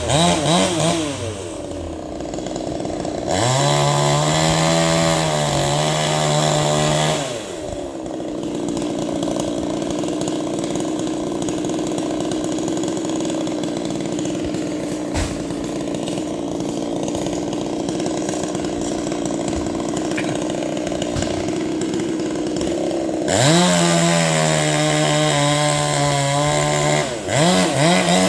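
Chainsaw engine running on a coconut tree job. It revs up to high speed a few seconds in and again near the end, and runs at a lower, steadier pitch through the long stretch in between.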